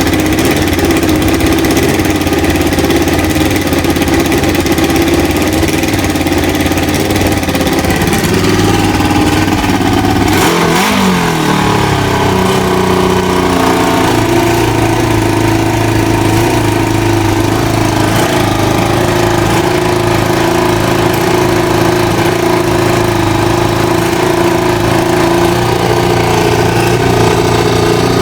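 Kawasaki ZL600 Eliminator's inline-four engine idling as it warms up, its air-fuel mixture screws at the factory 2.5 turns. About ten seconds in, a single quick blip of the throttle: the engine speed rises and falls back to idle.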